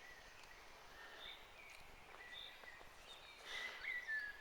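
Faint outdoor background noise with short, high bird chirps about once a second.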